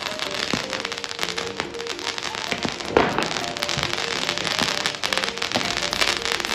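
Fireworks crackling and popping in a dense stream, with one louder bang about three seconds in, over background music.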